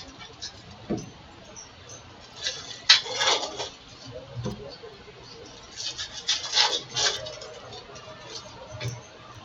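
Crinkling and rustling of trading-card pack wrappers and cards being handled, in two main bursts with a few small clicks between.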